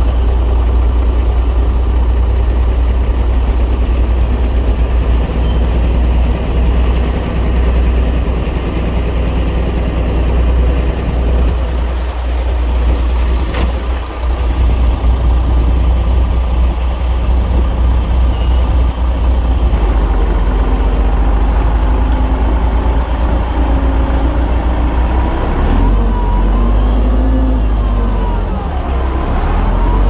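Heavy diesel engine of earthmoving machinery running steadily under load, revving up and down near the end, with a single sharp click about halfway through.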